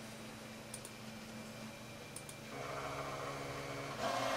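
Steady low hum of a computer in a small room, with faint mouse clicks in pairs about every second and a half as lines are selected and deleted in a CAD drawing. A louder rushing noise comes in past the middle and swells near the end.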